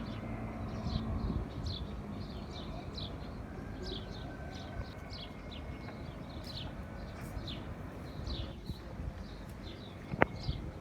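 Small birds chirping repeatedly, short falling high chirps two or three a second, over a low rumbling background, with one sharp click near the end.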